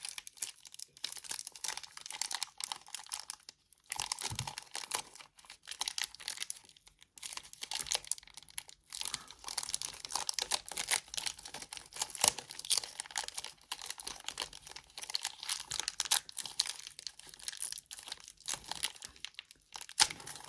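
Plastic packaging being handled: irregular crinkling and crackling of a plastic wrapper and tray as a toy figure's parts are pulled out, with a few brief pauses.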